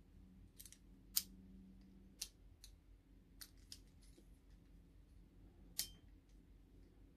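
A handful of small sharp clicks and snaps, the loudest about a second in, from a 1/14 scale truck fifth wheel coupling being handled and its locking mechanism worked by hand.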